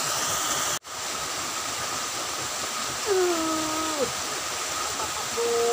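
Steady rushing noise like running water, which cuts out for an instant about a second in. Over it, about three seconds in, a low hooting call slides down in pitch, holds, then drops away, and a second hoot begins near the end.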